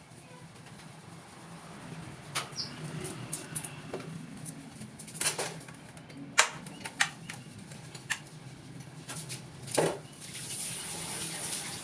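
Caged birds fluttering, with irregular sharp taps and rattles against the cage over a steady low hum.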